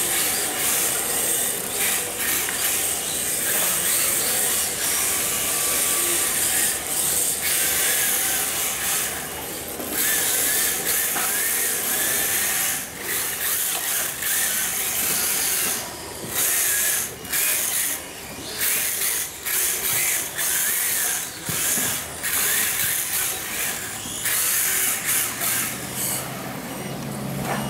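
Electric 1/10-scale RC drift car (3Racing Sakura D4) whirring with a high motor and drivetrain whine. The whine drops away briefly many times, more often in the second half.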